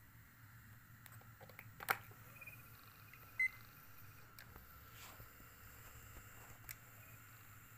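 Loading mechanism of a National NV-J1 VHS video recorder running: a faint steady whir from its small motor and gear train, with a few sharp clicks, one just under two seconds in. A short high beep sounds about three and a half seconds in.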